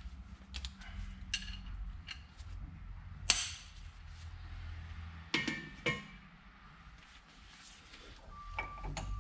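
Metal hand tools clinking, with a few sharp metallic knocks, the loudest about three seconds in and two more close together just past the middle. A vehicle's reversing beeper starts near the end.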